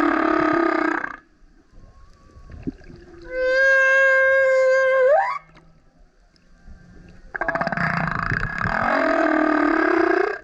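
Male humpback whale singing. A rough, buzzing song unit ends about a second in. It is followed by a clear, pure moan of about two seconds that sweeps sharply up in pitch at its end, and then by another long rough, buzzing unit that rises toward the end.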